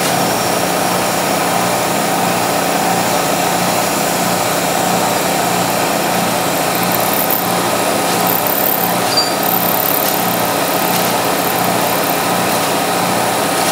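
Vertical milling machine running, its 3/16-inch end mill cutting a slot into a steel Sako rifle bolt on a 30-thousandths-deep pass: a steady motor hum, with a faint high-pitched cutting squeal about halfway through.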